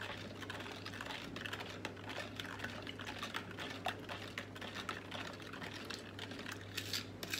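A spoon stirring sauce in a plastic measuring jug, making quick, irregular light clicks and scrapes against the plastic as sugar is dissolved, over a steady low hum.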